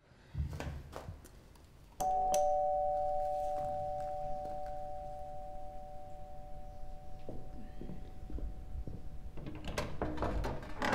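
Electric apartment doorbell ringing: after a sharp click, two steady tones start together about two seconds in and are held. The lower tone stops after about five seconds and the higher one fades out a couple of seconds later. A clatter of small knocks follows near the end.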